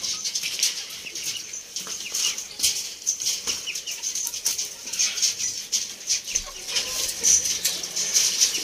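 Chickens flapping their wings and clucking, with a dense patter of rustling clicks.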